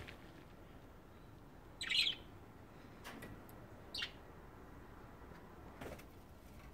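Budgerigars chirping: a short high call about two seconds in and a quick falling chirp about two seconds later, with a couple of faint clicks between.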